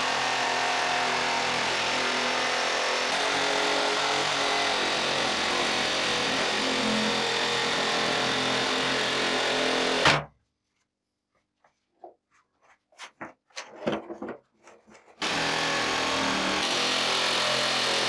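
Jigsaw running and cutting through wood with a steady buzz, cutting off suddenly about ten seconds in. A few light clicks and knocks follow in near silence, then the saw is heard cutting again near the end.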